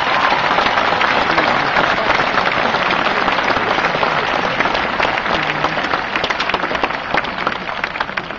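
Large open-air theatre audience applauding, a dense clatter of many hands clapping that dies down near the end.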